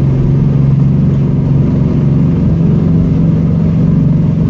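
Vehicle engine running steadily as it pushes through floodwater, heard from inside the cabin, with the rush and splash of the bow wave over it. The engine note steps up slightly about a second and a half in.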